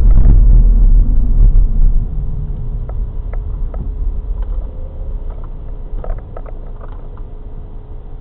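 Car driving, heard from inside the cabin: a loud low rumble of road and engine for the first two seconds, falling away as the car slows to a stop, then a quieter steady idle with a few faint clicks.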